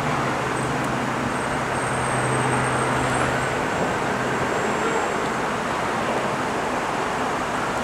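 Robinson R44 Raven helicopter flying overhead: steady rotor and piston-engine noise, with a low hum in it that fades out about halfway through.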